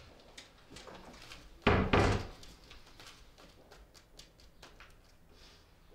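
A door slamming shut about two seconds in, one heavy thump, followed by a run of faint light clicks.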